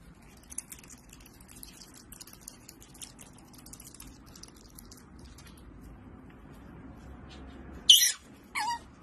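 An otter chewing and smacking on a slice of food, with many small wet clicks, then two sharp high-pitched squeaks near the end, the first the louder and the second dropping in pitch as it ends.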